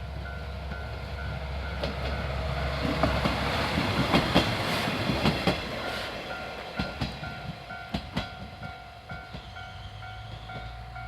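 Japanese level-crossing alarm ringing about twice a second while the Yodo Line's Shinkansen-style diesel railcar passes over the crossing. The train noise swells from about two seconds in, with sharp wheel clacks over the rail joints, then fades with a few last clacks, and the alarm rings on after it.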